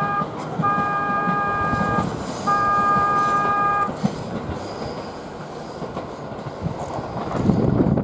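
A 223-series electric train pulling out and running away down the line, its wheels rumbling over the rails. Over the first four seconds a horn sounds three even steady blasts, each about a second and a half long. The running noise then drops, with a brief louder rumble near the end.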